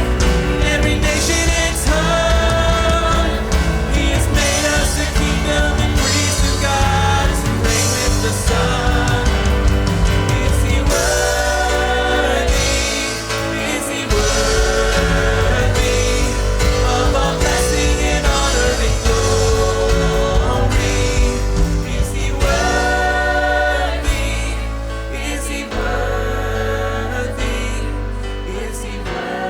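Live church worship band playing: drums, bass, keys and guitar under long held melody notes. The music thins out and gets quieter over the last few seconds.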